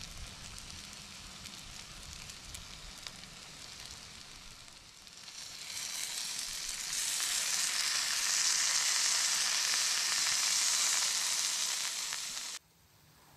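Food sizzling in a hot frying pan: a steady hiss that grows louder and brighter about halfway through, then cuts off abruptly near the end.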